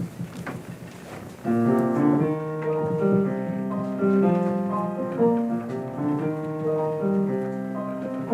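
Piano playing the introduction to a choral song, coming in about a second and a half in with sustained chords and notes; before that, only faint room noise with a few light clicks.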